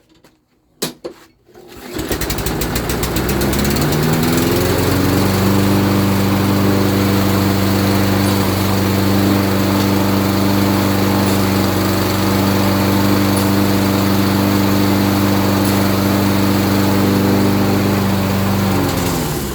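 Toro Recycler lawn mower engine starting about two seconds in, rising in pitch to a steady, even run, then winding down just before the end.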